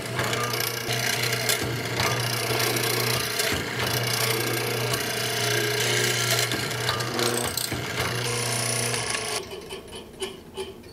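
Hollow chisel mortiser cutting a square mortise in wood: the motor hums steadily while the turning auger and square chisel chew through the workpiece with a rough, rasping sound. The cutting stops about nine seconds in, leaving a few faint knocks.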